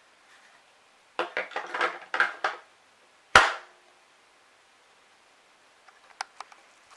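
A quick run of knocks and clatter, then one sharp thud about halfway through, then a few faint clicks near the end.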